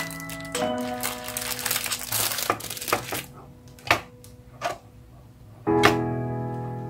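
Clear plastic wrapping crinkling as it is pulled off a black plastic watercolour palette, then a few sharp clicks as the bare plastic palette is handled. Background music plays throughout.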